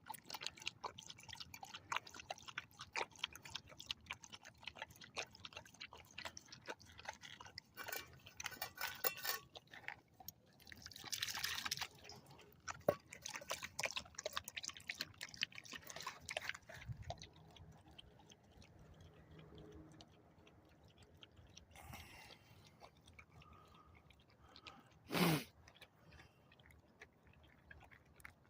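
Dog lapping water, a fast run of small wet clicks that goes on for about the first half and then thins out, with one short louder sound near the end.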